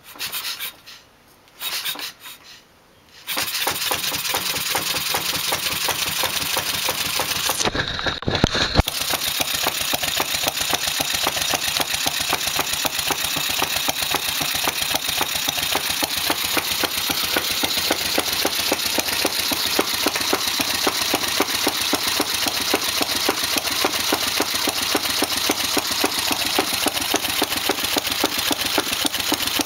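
A 6 hp Briggs & Stratton OHV engine with a heavy flywheel, an atmospheric intake valve and a muffler, spun by hand at its flywheel: a few short bursts as it turns over, then it catches about three seconds in and runs steadily with rapid, even firing. A brief louder disturbance comes about eight seconds in.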